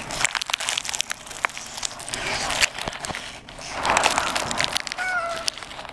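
Close-up eating sounds: biting into and chewing a crispy fried chicken cutlet, with crunching crackles and the rustle of its paper wrapper.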